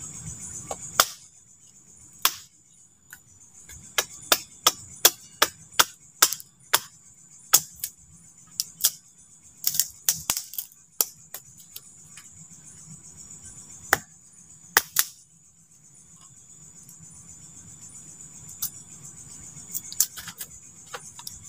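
Knife working a wooden stick: a run of sharp, irregular clicks and cracks as the blade cuts and splits the wood, thickest between about four and eleven seconds in, with a few more near the end.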